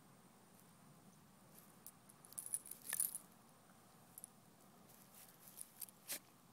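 Light metallic jingling of a dog's collar tags and leash clip as the dog noses and paws in the grass, in two clusters of clinks, about two to three seconds in and again around five to six seconds in.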